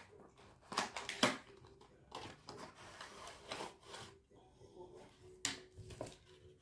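A small cardboard box being slid open, its inner tray rubbing and scraping out of the sleeve, with a few sharp clicks and taps of handling: two about a second in, the rubbing in the middle, another near the end.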